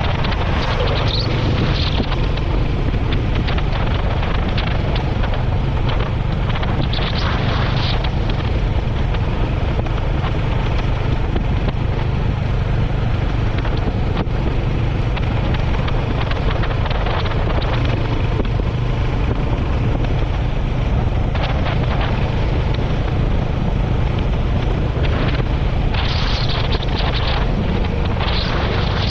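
Heavy wind noise on the action camera's microphone over the steady running of a Royal Enfield Hunter 350's single-cylinder engine at cruising speed, with stronger gusts near the end.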